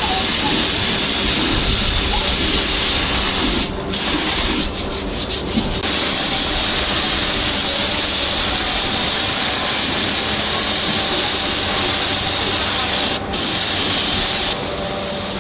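A steady hissing rush from factory work, cutting out briefly a few times, with a short flickering gap about 5 seconds in.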